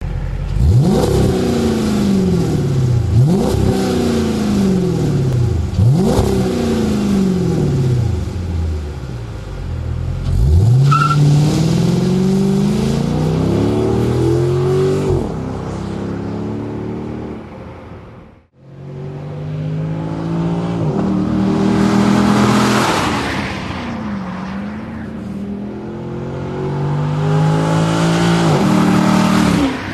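Dodge Magnum SRT-8's 6.1-litre Hemi V8 through an aftermarket Billy Boat exhaust. It revs three times in place, then accelerates hard away with upshifts. After a brief cut it accelerates toward and past with more gear changes.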